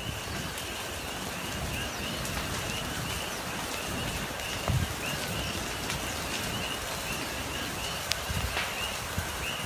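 Outdoor ambience: steady wind-like rumble and hiss, with a chorus of small animals giving short high chirps repeated a few times a second. A louder bump about five seconds in and a few crackles near the end.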